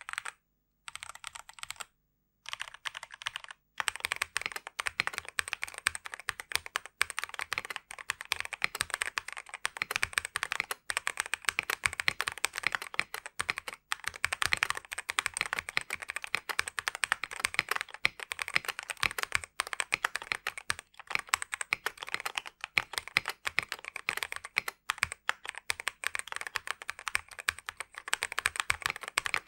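Typing on a Womier G75 gasket-mounted mechanical keyboard with lubed Coffee linear switches, a polycarbonate plate and factory IXPE and EVA foam dampening. It starts with a few scattered keystrokes, then runs as continuous fast typing from about four seconds in.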